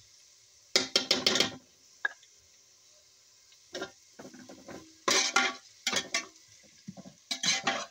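A slotted spatula scraping and clanking against a large metal pot as it stirs frying onions and garlic, in several short bursts of strokes with pauses between.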